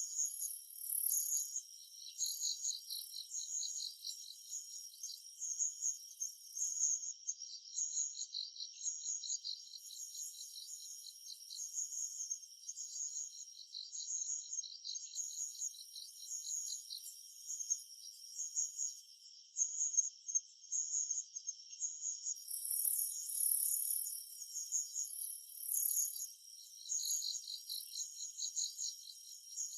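Summer forest chorus of several singing insects, all high-pitched. Rapid pulsing chirps repeat steadily, while a higher, hissier buzz cuts in and out every few seconds.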